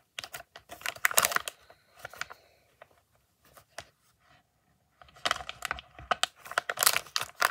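Toy packaging being torn open and crinkled by hand: bursts of crackling in the first second or so and again over the last two seconds, with a quiet stretch between.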